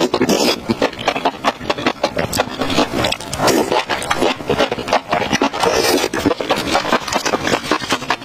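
Close-miked mouth sounds of eating sauce-coated enoki mushrooms: slurping, smacking and chewing in a dense run of quick, sticky clicks.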